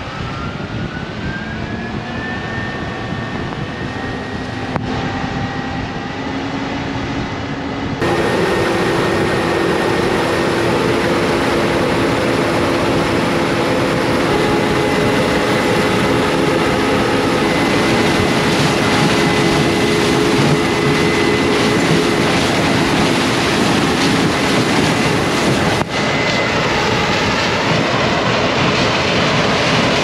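Case IH combine with a corn head harvesting standing corn: steady engine and machinery noise with a high whine that rises over the first few seconds, then holds. The whole sound gets abruptly louder about eight seconds in.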